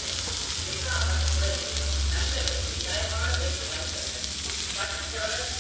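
Masala-coated fish frying in oil on a flat iron tawa, sizzling steadily.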